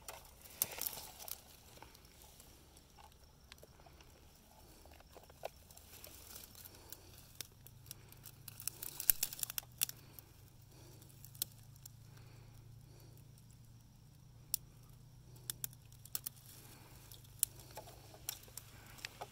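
Dry twigs and leaf litter rustling and crackling among brush, with scattered sharp clicks and a busier stretch of crackling about eight to ten seconds in.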